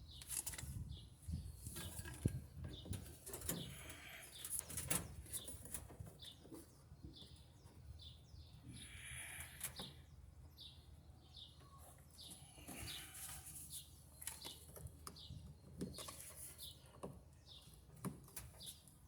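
Faint, repeated short chirps of small birds over a low steady hum, with a few scattered clicks and knocks.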